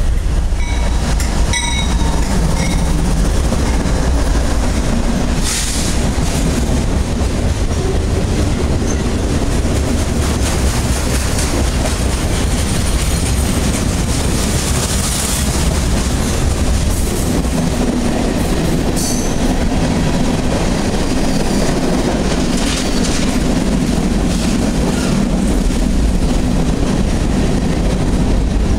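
CSX freight train passing close by. The lead diesel locomotive goes by first, then a long string of freight cars rolls past with a loud, steady rumble and clacking of wheels over the rails.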